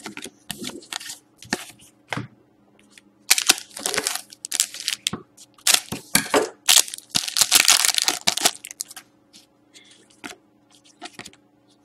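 Foil wrapper of a Panini Select hockey card pack crackling and crinkling as it is handled and torn open, in a dense run of crackles through the middle, then lighter clicks of cards being shuffled near the end.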